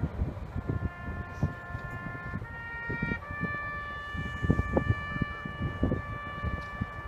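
Brass instruments playing a slow melody of held notes that change every second or two, with wind gusting on the microphone.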